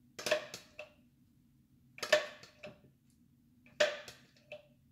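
A spoon knocking against a small bowl in three quick clusters about two seconds apart, each a few sharp clicks with a short ring, as a wet herb mixture is tapped out of the bowl.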